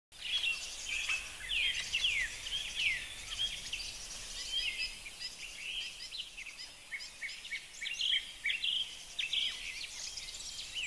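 A chorus of many small birds chirping and calling over one another: dense short notes mixed with quick downward-sweeping whistles.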